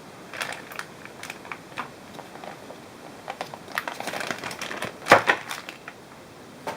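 Irregular clicks, taps and short rattles of small hard parts being handled, busiest toward the middle, with one louder knock about five seconds in.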